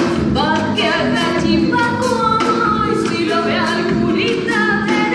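Argentine gato folk song playing for the dance: a sung melody over accompaniment with a steady beat.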